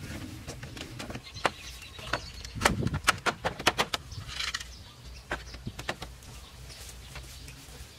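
Hollow knocks and clatter of bamboo poles as a woven bamboo wall panel is pushed and lifted upright, with a quick run of knocks about three seconds in.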